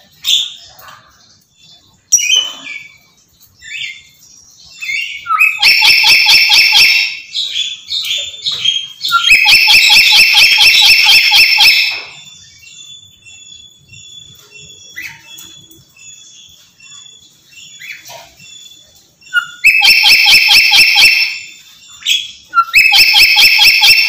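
Black-capped lory screeching in four long, loud bouts of rapid harsh pulsed calls, each lasting one to three seconds, with softer short chirps and whistles between them.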